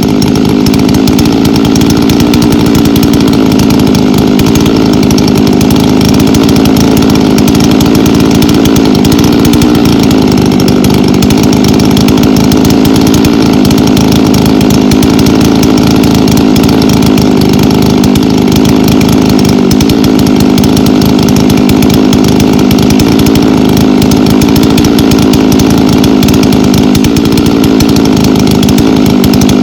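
Gasoline chainsaw running at full throttle, cutting through a log to buck it into firewood rounds; the engine note holds steady and loud.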